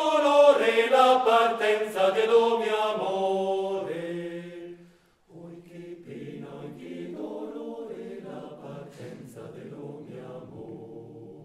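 Male a cappella choir singing a Trentino mountain folk song in close harmony. A loud phrase fades away to a brief pause about five seconds in, and the choir then sings on much more softly.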